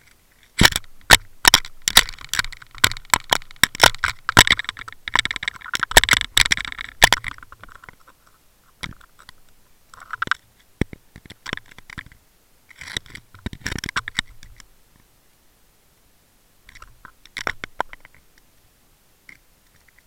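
Underwater crunching and sharp clicking: a dense run of clicks for about the first seven seconds, then shorter bursts with pauses between them.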